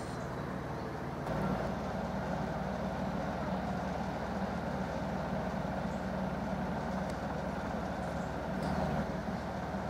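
Steady low rumbling noise that gets a little louder about a second in.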